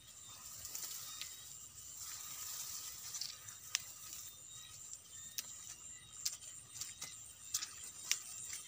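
Night insects chirring steadily in high, even bands. Scattered sharp clicks and snaps of footsteps pushing through dry grass and weeds come mostly in the second half.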